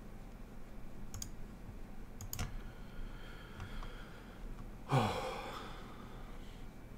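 A few computer mouse clicks, then about five seconds in a person's short sigh falling in pitch, the loudest sound.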